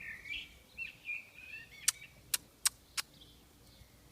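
Short bird chirps and peeps during the first half, then four sharp clicks in quick succession a little after the middle.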